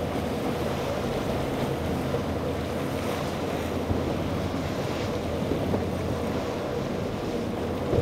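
Large motor yacht's engines running at speed, a steady low drone under the rush of spray and choppy water, with wind on the microphone.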